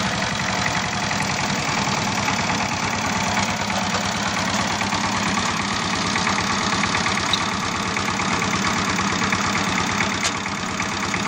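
Small DC motors of a homemade toy tractor whirring steadily as it drives over dirt, with a fast, even rattle.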